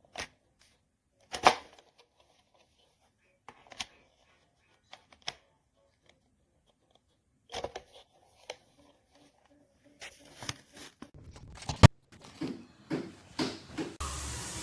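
Hard plastic parts, a diffuser attachment and hair dryer, being handled: scattered clicks and knocks, the loudest about a second and a half in, coming faster near the end. A steady rushing noise with a low hum starts just before the end.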